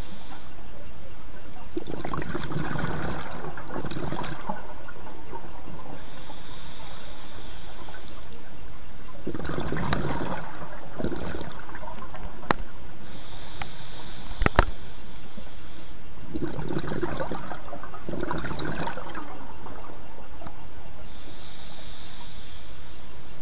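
A scuba diver breathing through a regulator underwater, in a slow regular rhythm about every seven seconds: a short hissing inhale, then a longer rush of exhaled bubbles. Two sharp clicks sound near the middle.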